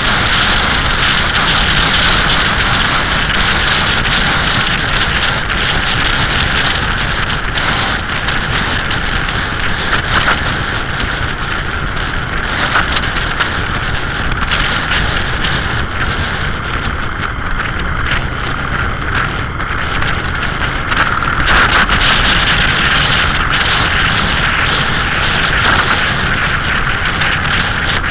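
Wind rushing over the microphone of a motorcycle-mounted camera at road speed, over the steady running of the Suzuki SV1000S's V-twin engine while cruising.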